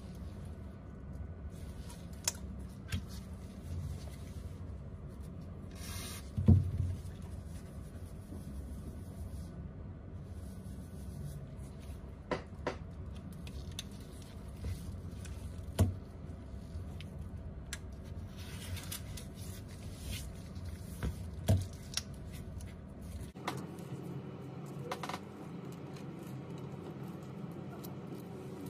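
Handling noise from an iPhone 11 Pro Max's frame and small internal parts being picked up, turned and set down on a work table: scattered sharp clicks and light knocks, the loudest about six and a half seconds in, over a steady low hum.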